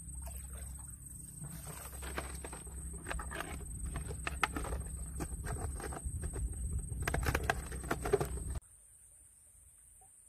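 Close rustling and crackling of rice stalks and grass with splashing in shallow paddy water as hands search the bank for freshwater crabs, mixed with clicks and crinkles of a plastic bottle being handled. It stops abruptly about three-quarters of the way through, leaving only faint quiet.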